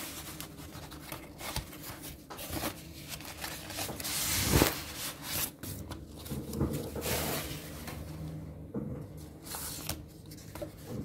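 White foam packing sheets and a cardboard box being handled and unwrapped by hand: irregular rustling and rubbing, with a louder scrape about four and a half seconds in.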